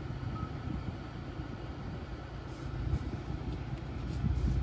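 Low steady rumble inside an electric car's cabin, with a few faint clicks, growing slightly louder near the end.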